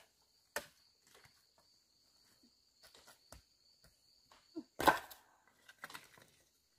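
Faint, steady high-pitched insect drone, with scattered knocks and scrapes as debris and a wooden board are handled on a dirt slope; a louder clatter and scrape about five seconds in.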